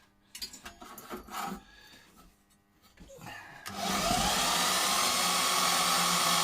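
Clicks and knocks as a portable bandsaw is handled and unclipped, then about two-thirds of the way in the bandsaw starts and runs steadily with a motor hum and whine.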